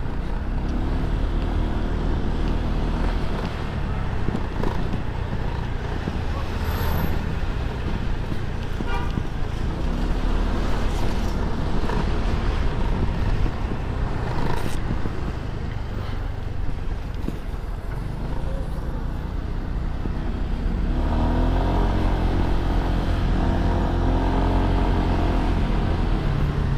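Honda SH150i scooter's single-cylinder four-stroke engine running under way through city traffic, its pitch rising as it picks up speed near the end.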